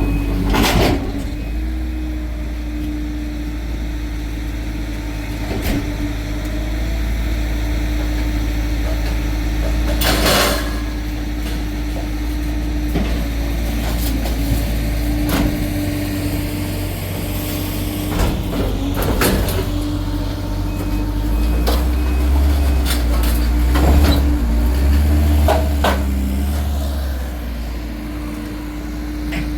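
Heavy work truck's engine running steadily with a low rumble and a constant hum, broken by short air hisses about a second and about ten seconds in, and by several metallic clanks and knocks later on.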